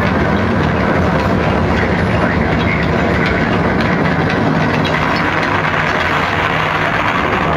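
Loud, steady rumbling, mechanical-sounding soundtrack of a projection-mapping show, played over loudspeakers in an open square.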